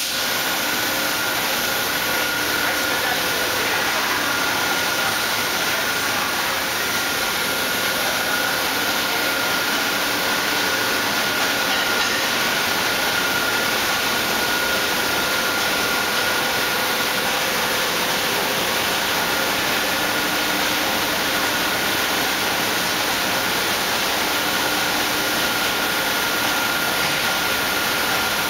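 Steady machine-shop running noise: an even hiss with a constant high-pitched whine and a faint low hum, unchanging throughout, from large CNC machinery under power.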